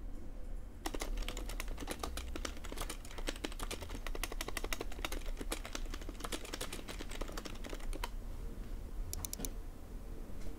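Fast, rapid-fire typing on a computer keyboard, keys mashed at random. It starts about a second in, stops about two seconds before the end, then a few more keystrokes follow.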